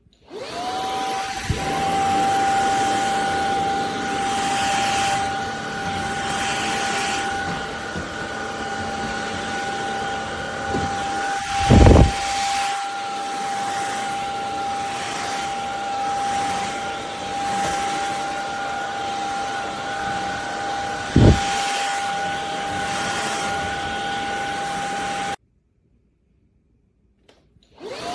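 CHEBIO cordless stick vacuum cleaner's motor spinning up and running with a steady high whine. Two loud thumps come partway through, and the motor cuts off suddenly near the end, then spins up again.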